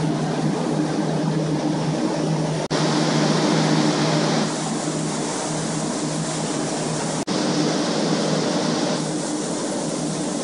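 Water-damage restoration air movers (floor drying fans) running: a steady loud whir over a low motor hum. The sound cuts out for an instant twice, about a quarter of the way in and about two-thirds in.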